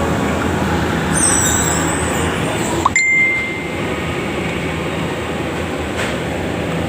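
Steady machine hum and noise, with a sharp metallic click about three seconds in that rings on as a clear ding for about a second.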